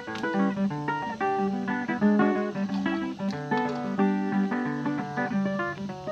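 Background music: a guitar picking out a quick melody of short plucked notes.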